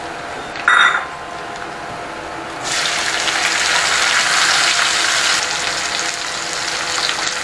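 Food frying in hot oil in a pan, a steady sizzle that grows suddenly louder and fuller about two and a half seconds in. There is a brief louder sound just under a second in.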